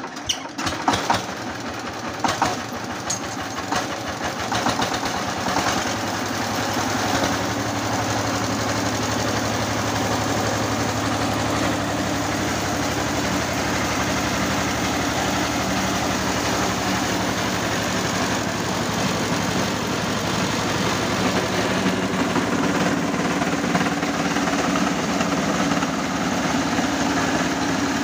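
Single-cylinder diesel engine of a two-wheel power tiller running a homemade rice huller, with a rapid, even knocking beat. Irregular clattering in the first few seconds gives way to a steady run.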